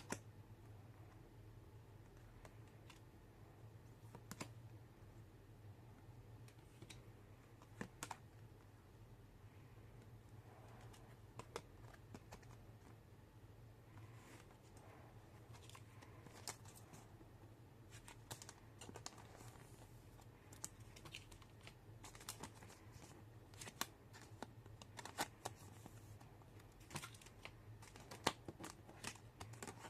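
Faint, irregular clicks and taps of small objects being handled, growing busier in the second half, over a low steady hum.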